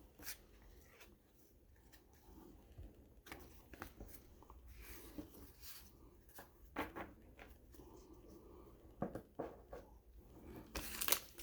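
Faint rustling and a few light clicks of baseball cards being handled and turned over one by one.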